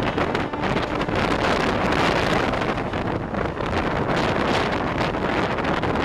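Wind rushing and buffeting over the microphone at the open door of a moving MEDHA three-phase EMU, with the train's running noise underneath, steady throughout.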